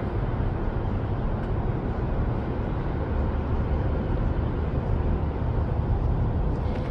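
Steady low rumble of vehicle noise, even throughout with no sudden events.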